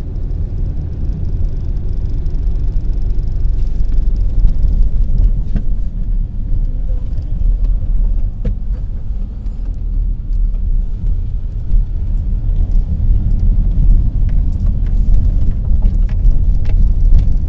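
Steady low rumble of road and wind noise inside a moving car, with a few faint ticks scattered through it.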